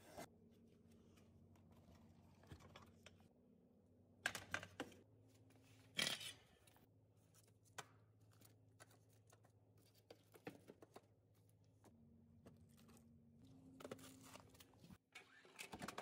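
Near silence: a faint steady low hum with a few scattered short clicks and knocks, the loudest about four and six seconds in and a small cluster near the end.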